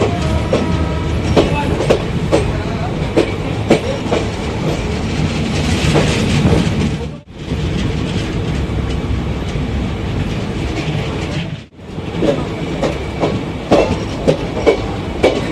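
Passenger train running at speed, steady rumble of the coaches with the wheels clattering over rail joints in sharp, irregular clicks. The sound drops out abruptly twice, briefly.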